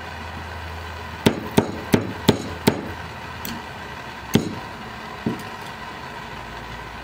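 A series of about eight sharp knocks or pops at irregular intervals, five in quick succession then three more spaced out, over a low steady hum.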